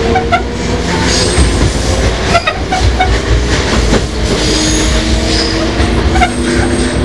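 Running sound inside the lead motor car of a Sotetsu 5000 series electric train. The whine of its Toyo Denki VVVF inverter motors and right-angle cardan drive comes as steady tones that rise slowly in pitch, over a constant rumble of wheels on rail with scattered clicks from rail joints.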